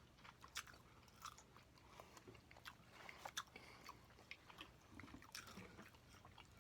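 Faint chewing of food, with soft crunches and small clicks scattered irregularly throughout.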